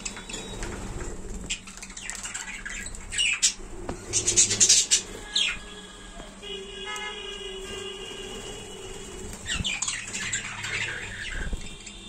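Budgerigars squawking and chirping in short, harsh bursts, loudest about four to five seconds in. For a few seconds in the middle a steady held tone with overtones sounds beneath them.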